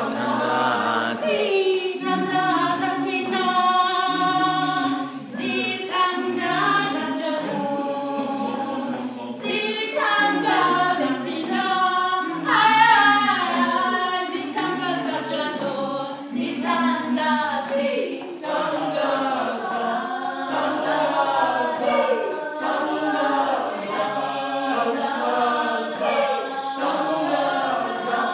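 Small mixed choir of men and women singing a cappella in several parts.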